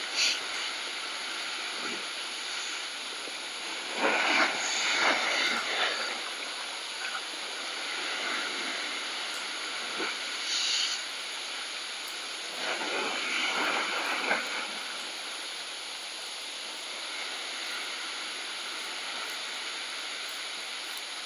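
Sea surf washing against the rocks below, a steady hiss of broken water with two louder surges, one about four seconds in and one about thirteen seconds in.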